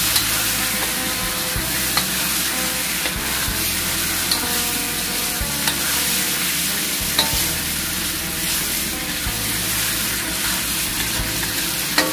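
Whole quail sizzling in hot oil in a wok as a metal spatula stirs and turns them, with a few sharp clicks of the spatula against the wok. The birds are being browned in the pan before the liquid goes in.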